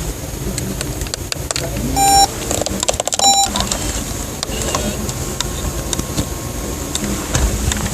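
Steady low droning rumble like a distant engine, with scattered clicks. Two short, high beeps about a second apart are the loudest sounds.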